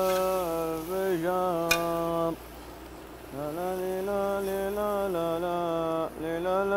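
A man's voice singing long, drawn-out notes in a slow, chant-like tune, with a pause in the middle. One sharp click comes nearly two seconds in.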